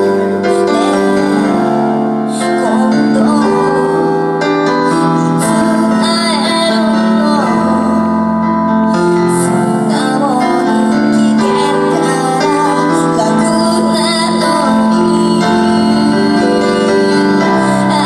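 A woman singing live into a microphone over an instrumental accompaniment, the melody flowing without a break.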